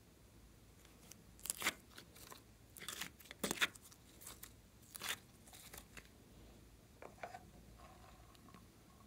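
Slime being scooped by hand out of a thin clear plastic tub. There is a run of short crackling, crinkling clicks from the plastic and the sticky slime pulling away, loudest a couple of seconds in, then a few fainter ones.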